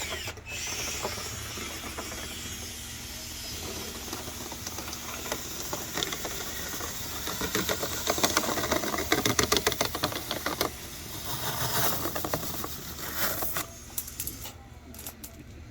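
A dryer vent duct being cleaned out: a steady hiss with fast rattling and scraping inside the duct, which gets louder and busier about halfway through.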